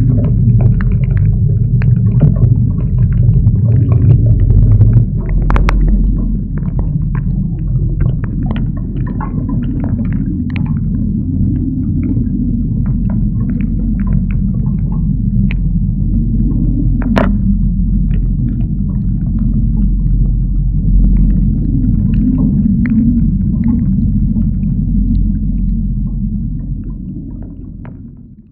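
Storm wind buffeting a GoPro's microphone on a boat at sea, heard as a heavy, steady low rumble with scattered sharp ticks and knocks. It fades out near the end.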